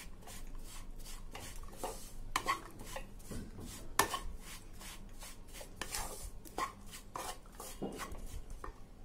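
A spatula scraping and knocking against a non-stick kadai as crumbly besan is stirred and roasted in ghee: irregular strokes, about two a second, with a sharper knock about four seconds in.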